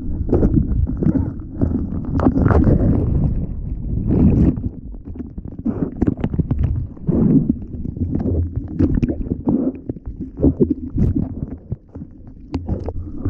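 Surf water sloshing and splashing in irregular surges, with low rumbling buffeting on the microphone.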